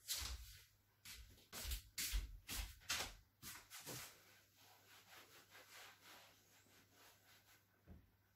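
Kitchen clatter at the stove: a run of sharp knocks and scrapes about two a second for the first few seconds, then fainter handling noises.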